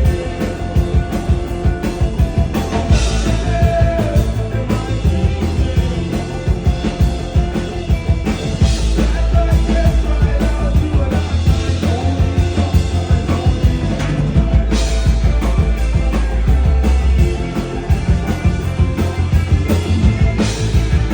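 Live rock band playing a song: a drum kit keeping a steady beat under a heavy, deep bass line, with singing.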